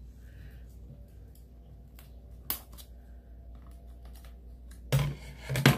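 Scissors snipping at the tight plastic wrap on a Blu-ray case: soft clicks, one sharper snip about two and a half seconds in, and two louder snips near the end.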